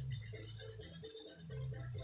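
Music with a repeating bass line and a steady rhythmic pattern.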